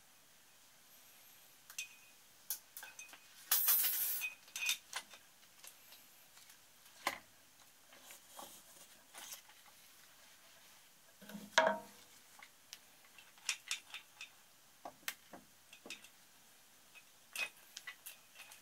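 Light metal clinks, taps and scrapes of hand work on a Yamaha SRX600 engine as its cylinder is fitted down over the piston. A longer scrape comes about three and a half seconds in, and a louder knock just before the twelve-second mark.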